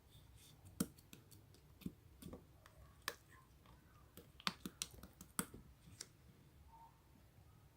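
Slime being handled by hand, giving scattered small clicks and pops at irregular intervals.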